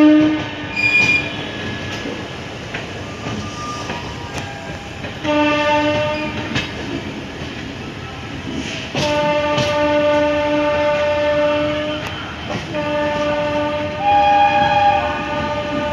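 Indian Railways locomotive horns sounding in repeated long blasts, the longest about three seconds, with a higher-pitched horn joining near the end. Under them the train rumbles and its wheels clack over the points.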